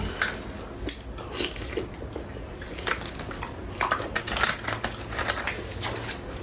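Chewing and crunching on whole chicken, with irregular crackling bites as chicken bone is bitten through between the teeth. The crunches come thicker in the second half.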